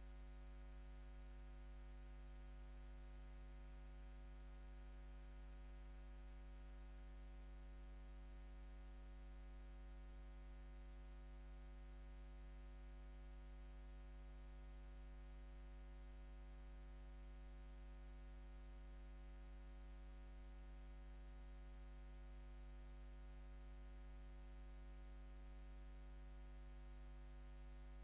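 Near silence with a faint, steady low electrical hum.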